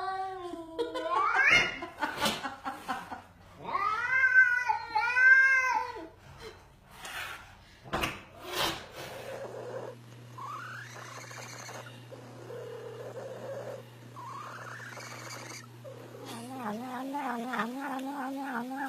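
Cats yowling and meowing in drawn-out, wavering calls. A rising call comes at the start, then a string of arching calls about four to six seconds in, and a low, wobbling yowl near the end.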